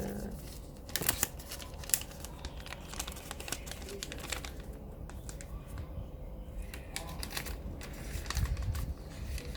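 Scattered light clicks and crinkling from hands handling small tablet parts and plastic packaging, with a couple of sharper clicks about one and two seconds in.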